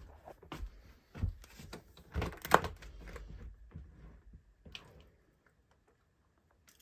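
Footsteps crunching and thudding irregularly through deep snow, with one sharp thump about two and a half seconds in; they stop about five seconds in.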